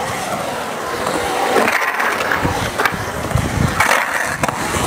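Skateboard wheels rolling and carving across a concrete bowl. In the second half come a few sharp knocks, the last as the trucks meet the metal coping at the lip.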